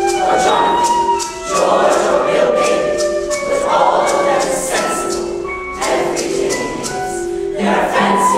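Chorus of many voices singing together in unison over instrumental accompaniment with held, steady notes.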